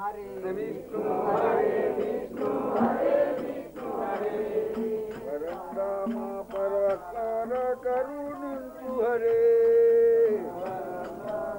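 A man's voice chanting a devotional song in long held notes, one note held for over a second near the end.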